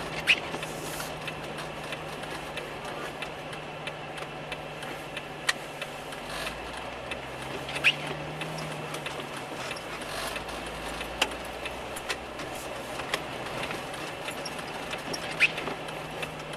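Car engine running with steady road noise heard from inside the cabin; the engine note rises and falls briefly about halfway through. Several sharp clicks or knocks sound at irregular intervals.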